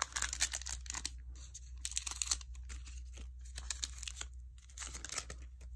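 Foil wrapper of a Prestige football card pack being torn open and crinkled, in several short bursts of crackling, with the cards being handled.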